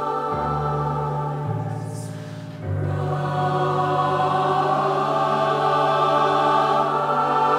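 Mixed youth choir singing a slow, sustained choral passage in held chords. Around two seconds in the sound thins and a brief hiss is heard, then the voices swell again.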